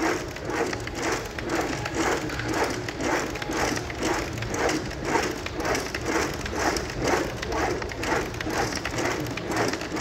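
Pro-Fitter 3D cross trainer's foot-platform carriage rolling side to side along its rails in a steady rhythm, a rolling noise whose strongest strokes come about once a second.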